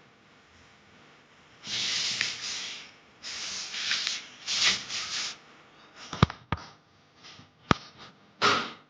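A dog sniffing and snorting close to the microphone in a run of noisy bursts. A few sharp clicks come about two-thirds of the way in.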